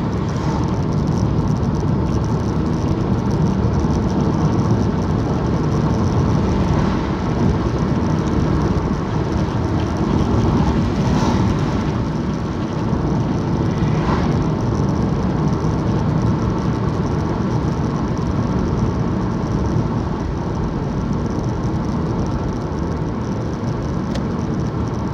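Car driving along a main road, heard from inside the cabin: a steady mix of engine and tyre noise on the road surface.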